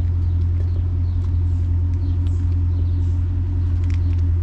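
Holden Caprice's 6-litre V8 idling steadily through a J-pipe exhaust, a deep even rumble that does not change.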